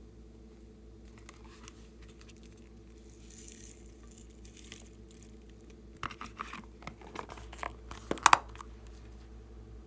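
Crinkly plastic being handled: faint rustling, then a run of sharp crackles and clicks from about six seconds in, the loudest near the end, over a steady low hum.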